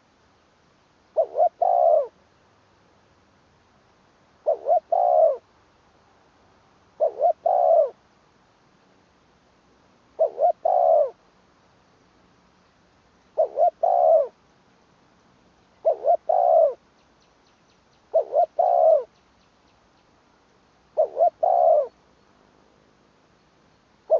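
Spotted dove cooing: a short call of two or three quick notes, repeated about every three seconds, eight times over.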